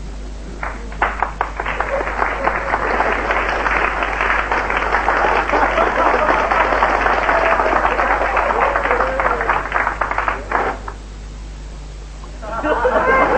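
Studio audience applauding, a dense patter of many hands that stops abruptly about three-quarters of the way through.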